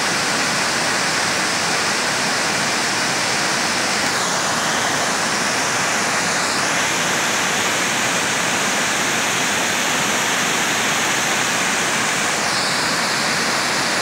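Water pouring over a concrete dam spillway and low rock ledges: a steady, unbroken rush of falling water. The creek is running high after recent rains.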